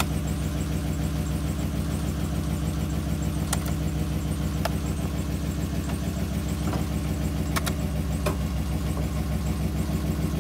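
Engine running steadily at idle, with a few short sharp clicks about three and a half, four and a half, seven and a half and eight seconds in.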